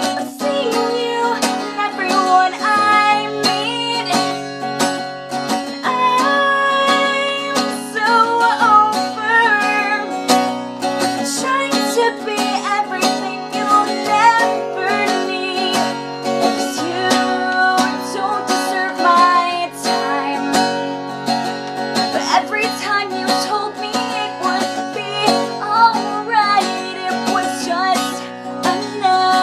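A woman singing while strumming a capoed acoustic guitar in a steady, even rhythm.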